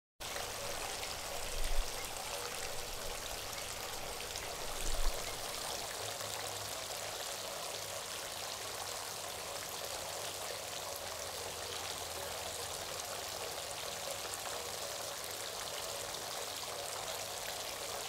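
A stream running steadily, with two brief dull low thumps about two and five seconds in.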